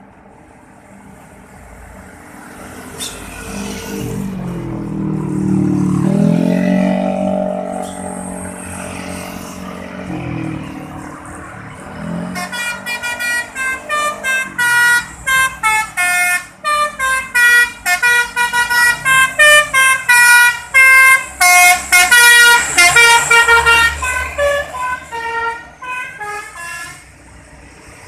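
A bus's multi-tone telolet horn plays a fast melody of short stepped notes for about fifteen seconds, the driver's greeting to roadside bus spotters. Before it, a heavy vehicle's engine comes past, rising in pitch and loudness and then fading.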